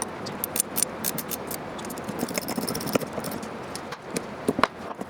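Small metal aircraft hardware clinking and rattling as it is handled, with scattered light clicks and one sharper click near the end.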